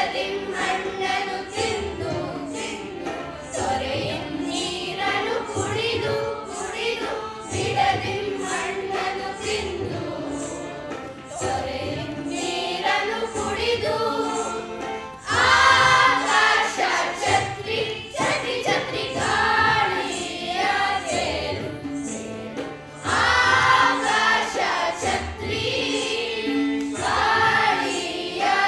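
A chorus of voices sings a song together over a steady percussion beat. It swells louder about halfway through and again near the end.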